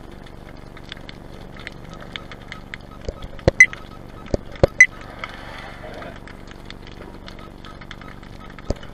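Underwater sound through a diving camera: a steady low hum with several sharp clicks and knocks clustered in the middle, and two more at the very end.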